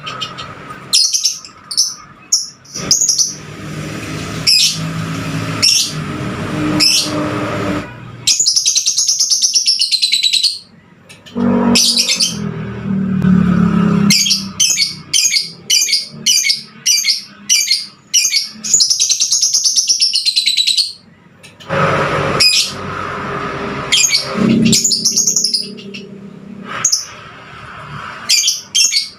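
Lovebird calling: rapid runs of sharp, high chirps, broken twice by a longer warbling phrase that arches up and down in pitch. A low rumble comes and goes twice underneath.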